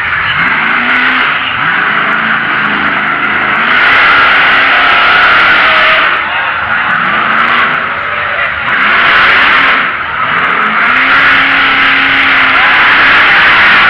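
Monster truck's supercharged, methanol-fuelled engine revving again and again under a loud continuous roar, each rev rising in pitch and then falling away; one rev is held longer near the end.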